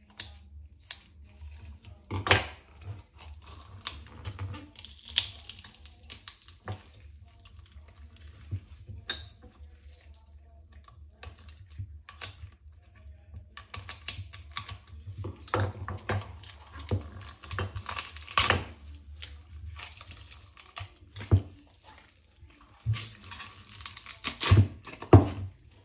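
Knife and utensils knocking, tapping and scraping on a cutting board as a large snapper is filleted. The sharp knocks come irregularly, with the loudest about two seconds in, again around eighteen seconds, and in a cluster near the end.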